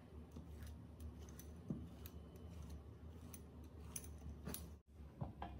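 Pizza cutter wheel rolling through a slab of thick slime, scoring it in lines, with scattered sharp sticky clicks as the blade presses into and lifts off the slime. The sound drops out for an instant near the end.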